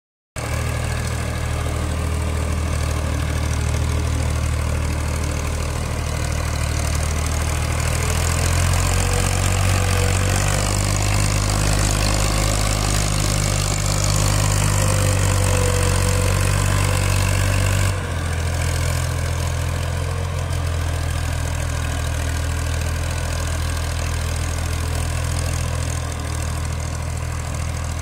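Fiat tractor's diesel engine running steadily under load as it pulls a cultivator through the soil, its tone changing abruptly about eighteen seconds in.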